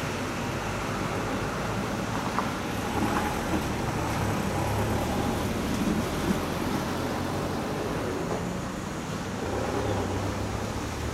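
Steady background rumble with a low hum and a few faint clicks.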